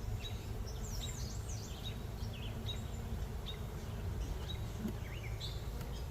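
Birds chirping in quick short calls, several a second, over a steady low rumble and the faint hum of honey bees from an open hive.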